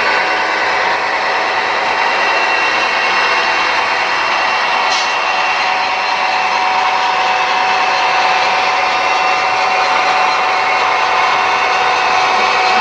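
HO scale model freight train running past: a steady mechanical whir of locomotive motors and metal wheels rolling on the track, with a brief high hiss about five seconds in.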